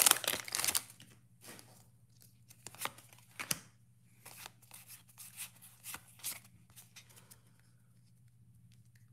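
Foil Pokémon booster-pack wrapper crinkling as it is torn open during the first second, then short, soft slides and rustles of the trading cards against each other as the stack is handled. A faint steady low hum runs underneath.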